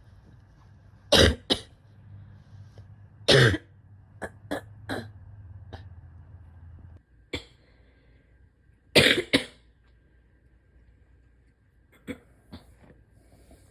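A woman coughing hard in repeated bouts: chesty coughs from a respiratory illness settling in the chest on top of asthma and chronic bronchitis. The loudest coughs come about a second in, about three and a half seconds in and about nine seconds in, with smaller coughs between them and near the end.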